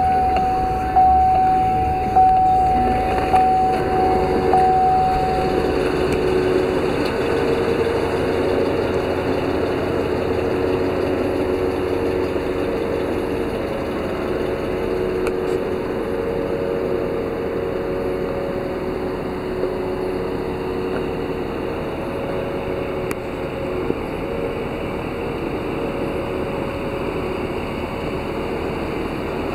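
2009 Chevrolet Silverado 3500HD truck engine idling steadily just after start-up, heard first from the cab and then from outside along the flatbed. A steady high whine sits over it for the first few seconds.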